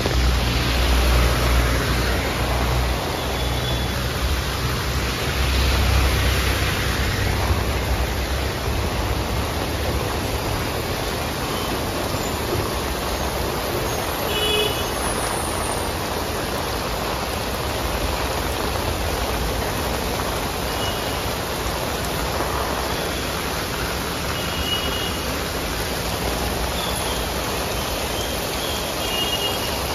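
Heavy rain falling steadily on a city street, a continuous hiss of rain on wet road and pavement. A low rumble of passing traffic is strongest in the first several seconds, and a few faint short toots come through now and then.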